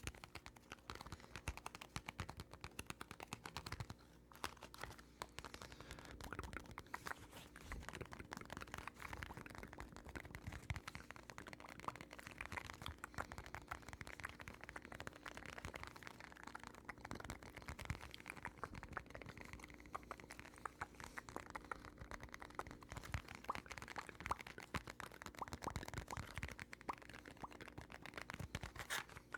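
Dense, irregular soft clicks and taps close to a microphone, an ASMR trigger sequence of quick tapping and clicking.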